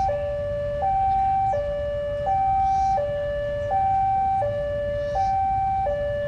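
Electronic railway level-crossing warning alarm sounding its two-tone high–low cycle, each tone held a little under a second, warning that a train is approaching.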